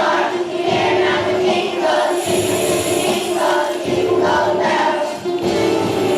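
Young children's choir singing a Christmas song together over musical accompaniment.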